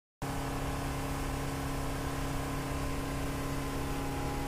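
Motorboat under way: the steady drone of its engine under a constant rushing hiss of wind and water. It cuts in abruptly just after the start.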